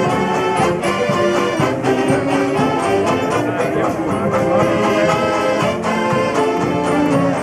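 Mummers string band playing live: a massed section of saxophones carrying the tune over strummed banjos, steady and loud.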